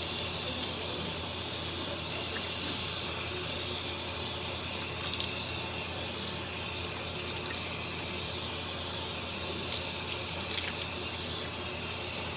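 Bathroom sink tap running steadily into the basin, with small splashes as the face is rinsed with cold water.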